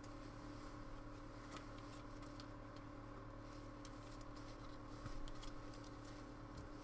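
Faint handling of trading cards, light clicks and rustles as cards are slid through a pack, over a steady electrical hum.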